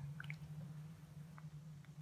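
Faint, wet mouth sounds of someone chewing food, with a few soft clicks over a steady low hum.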